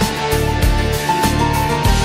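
Background music with a steady beat, held melody notes and a bass line.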